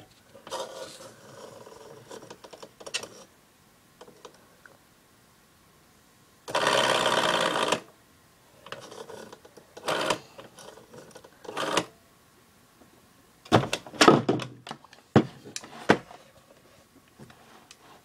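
Rotary telephone dial being wound and released: one long whirring, clicking return lasting over a second, then two short returns, the pattern of dialing 9-1-1. Near the end come several knocks and clatters as the handset is picked up.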